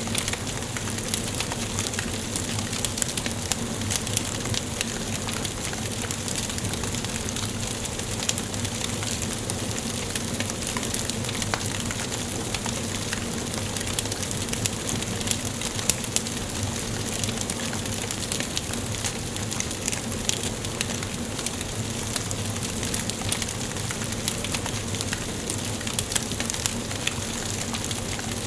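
Wood fire burning in a fireplace: a steady hiss with frequent small crackles and pops.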